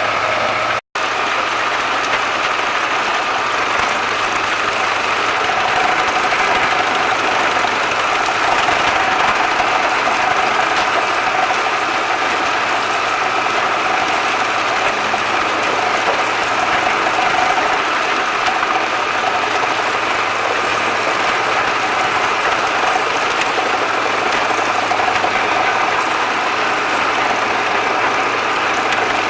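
Wood chipper running steadily under engine power, a dense, even mechanical noise. The sound cuts out for an instant about a second in.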